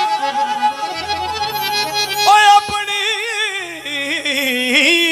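Live Punjabi devotional band playing an instrumental passage: a wavering, reedy, accordion-like keyboard melody over bass notes and drum strokes.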